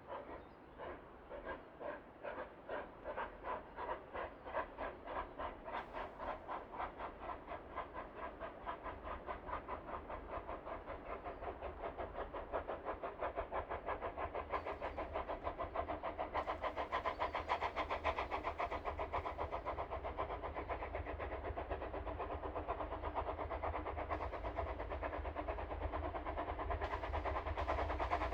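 Steam locomotive chuffing, its exhaust beats starting at about two a second and quickening steadily into a fast rhythm as it gathers speed, growing louder with a rising low rumble.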